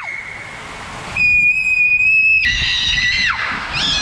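A girl's long, high-pitched screams, each held about a second and falling away at the end, riding down an enclosed tube water slide, with water rushing under the tube before the first scream.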